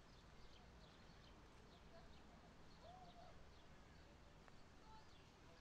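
Faint birdsong: scattered short chirps and whistles, with one brief lower whistle about three seconds in, over a quiet low background hum.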